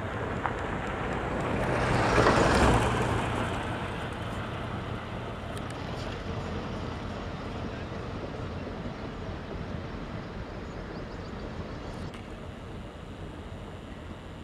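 The 16-cylinder EMD two-stroke diesel of a WDP4 locomotive humming at low revs as the passenger train eases along at low speed, with a steady rushing rumble of rolling coaches. A loud rushing swell rises and fades about two seconds in, and the engine hum dies away after about six seconds.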